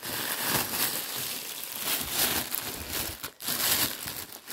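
Clear plastic wrapping crinkling and rustling in a busy run of irregular crackles as a wrapped backpack is handled and lifted out of a cardboard box.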